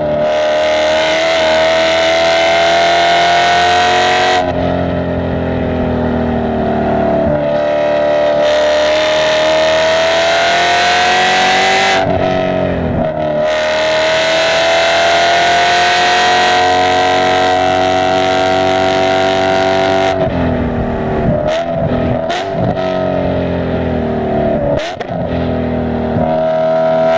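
A car engine running hard at high revs on a race track. Its pitch climbs slowly through each gear and drops at a few points, with a sharp lift and recovery about halfway through. Near the end come several quick rev drops and rises, the pattern of braking and downshifting into a corner.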